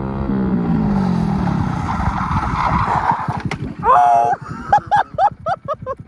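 Motorcycle engine dropping in revs as the bike brakes to a stop, with a tyre skidding hiss, then a shout of "Oh!" and excited voices near the end.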